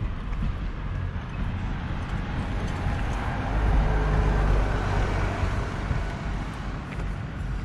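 A motor vehicle drives past on the road, its engine and tyre noise building to a peak about four seconds in and then fading away.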